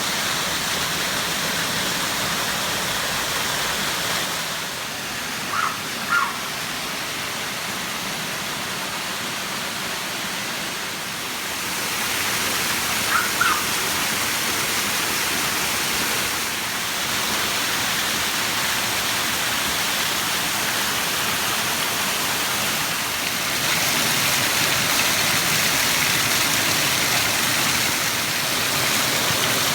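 Waterfall rushing: a steady roar of falling water that shifts in level a few times. Two brief pairs of high chirps sound over it, about six and thirteen seconds in.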